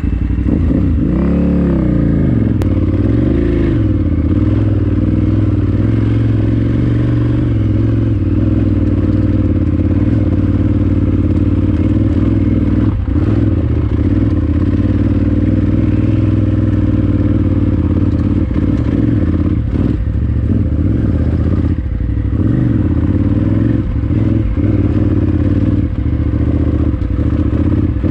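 KTM 990 Adventure R's V-twin motorcycle engine revving a few times in the first few seconds, then running steadily, with a few short knocks and clatter over it.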